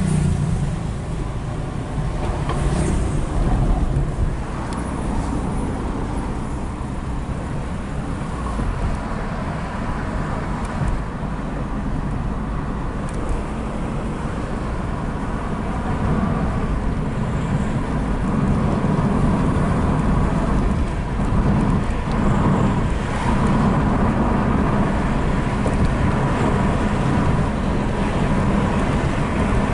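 Nissan Primera driving along a road, its engine and tyre noise heard from inside the cabin as a steady rumble that grows a little louder about halfway through.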